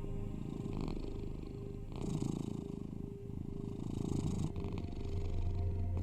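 Domestic cat purring steadily, the purr swelling and easing with each breath about every two seconds, over a low steady tone from the binaural sound bed.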